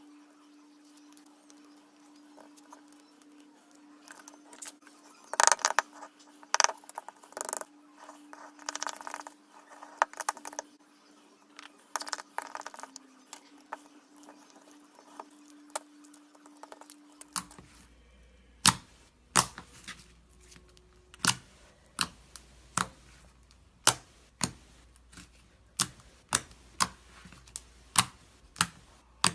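Slime being worked by hand, giving clusters of sharp crackling pops over a faint steady hum, then, after a change of clip about two-thirds of the way in, single sharp pops at roughly one to two a second.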